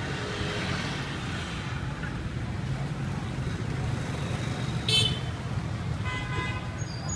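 Street traffic running steadily, with a short, high horn toot about five seconds in and a second, lower horn beep about a second later.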